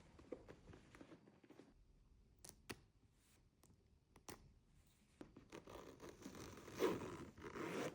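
Packaging being handled in an unboxing: a few small clicks, then rustling that grows louder toward the end.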